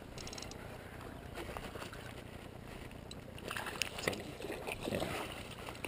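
Rustling of tall grass and reeds as someone pushes through shoreline vegetation, with a few soft knocks a little past halfway.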